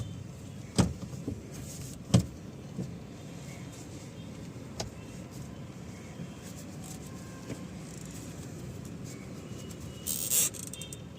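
Mahindra XUV300 steering column making sharp clicks and knocks as the steering is turned, two loud ones in the first couple of seconds and fainter ones later, with a short scraping burst near the end, over a steady low hum. The noise stays with the clock spring removed, so it comes from inside the steering column, where the grease has not reached.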